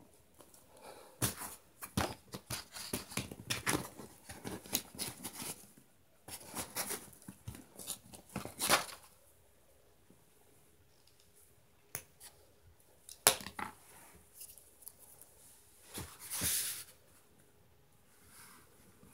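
Handling noise of pens and a sketchbook: dense clicking and rustling for the first nine seconds or so, then a few separate clicks and a short rustle.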